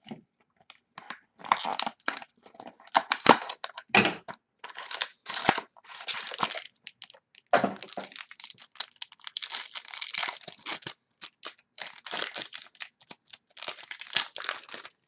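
Wrapper of a pack of trading cards being torn open and crinkled in the hands, with irregular crackling rustles and a few louder snaps.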